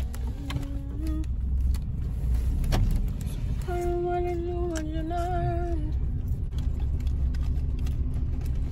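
A car's low, steady cabin rumble, with a voice holding a couple of wavering notes: briefly near the start, then for about two seconds from around four seconds in. A few light clicks fall between the notes.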